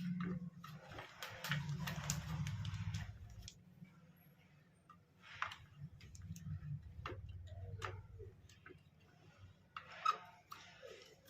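Plastic handling noise and sharp clicks as an 8 GB DDR4 RAM stick is fitted and pressed into a motherboard memory slot, with the slot's locking clips clicking; a rustling first, then a few separate clicks, the loudest near the end.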